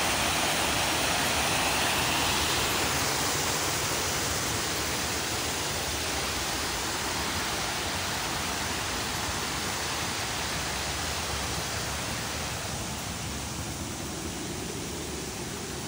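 Steady rush of flowing stream water, slowly growing quieter.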